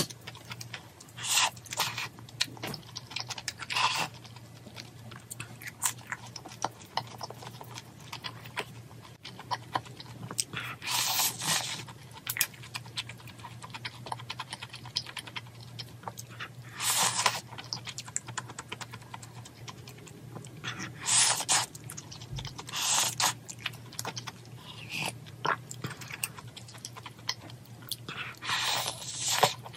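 Close-miked eating of malatang: continual chewing with small wet clicks and crunches. About seven louder bursts, each up to a second long, come as she slurps noodles. A steady low hum runs underneath.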